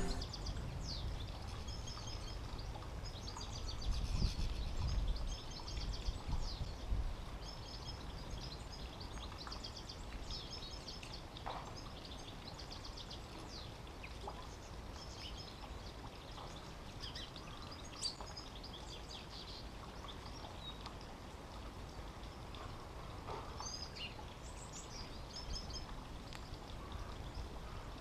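Wild songbirds chirping and twittering in quick high trills, busiest in the first ten seconds and again near the end, over steady outdoor background noise. Low wind rumble on the microphone comes in gusts about four to seven seconds in.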